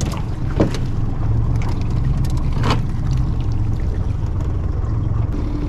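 Jon boat's outboard motor idling steadily with a low hum, and a short splash about half a second in as the tossed bait hits the water.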